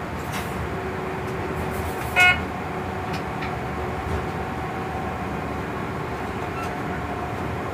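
Steady running rumble in the cab of a class 139 electric locomotive, with one short, loud horn-like beep about two seconds in and a faint whine after it.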